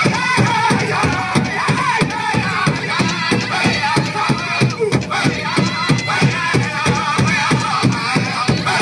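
Powwow drum group beating a large drum in a fast, steady beat while the singers chant in high voices.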